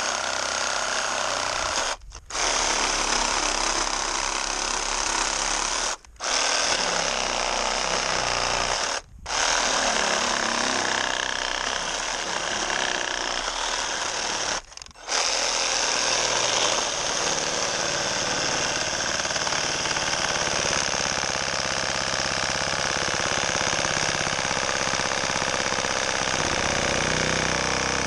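SnapFresh cordless reciprocating saw running steadily, its blade cutting tree branches, with short breaks about 2, 6, 9 and 15 seconds in.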